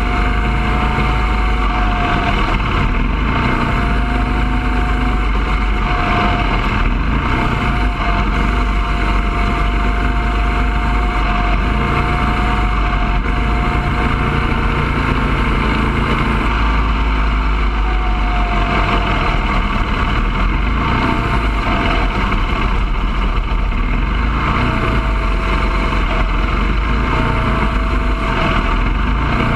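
Bandolero race car's single-cylinder Briggs & Stratton engine running hard on track, heard from inside the cockpit. It makes a steady, loud drone with a whine whose pitch wavers slightly up and down.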